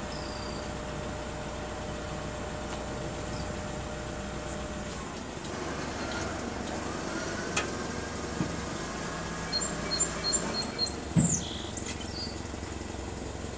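Propane forklift engine running steadily at idle. Birds chirp and whistle in the second half, and there are a few short knocks, the loudest about eleven seconds in.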